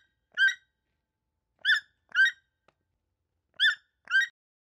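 Toco toucan giving five short grunt calls, mostly in pairs about half a second apart.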